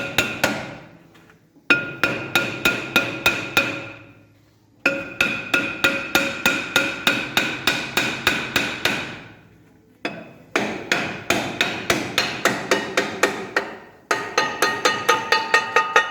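Hammer blows on the rusted-on rear brake drum of a UAZ Patriot to knock it free, in five quick runs of about four blows a second with short pauses between them. The drum rings with each blow.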